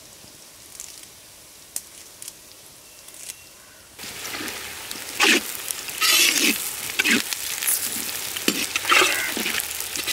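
Onions and curry leaves frying in hot oil in a kadai: a soft sizzle with a few small pops at first, then from about four seconds in a loud sizzling crackle, with a ladle scraping the pan again and again as they are stirred.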